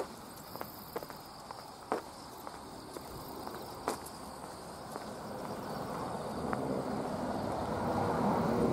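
Footsteps of someone walking on a paved path, irregular ticks over the faint steady drone of insects. In the second half a broad rushing noise swells up and grows louder.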